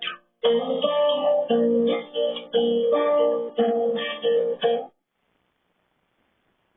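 Background music of plucked string notes in a steady rhythm, cutting off suddenly about five seconds in, then near silence.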